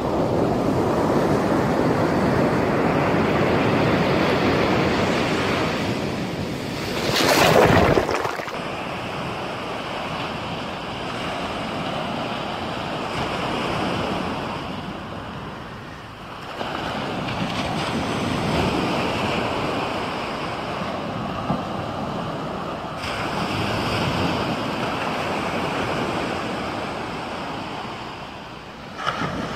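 Ocean surf on a sandy beach, waves swelling, breaking and washing back, with wind on the microphone. A brief loud rush comes about seven seconds in, and the sound shifts abruptly a few times.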